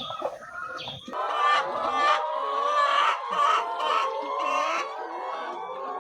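A flock of laying hens clucking and calling together, many overlapping voices, beginning suddenly about a second in.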